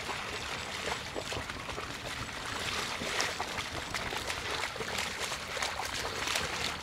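A dog wading through a shallow pond, water splashing and sloshing around its legs with each stride.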